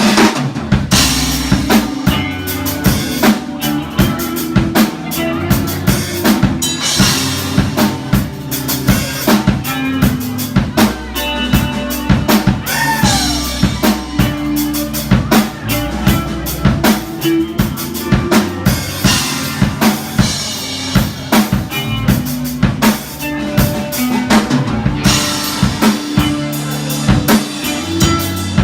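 Live rock band playing an instrumental passage, the drum kit driving a steady beat of kick, snare and cymbals over sustained bass notes.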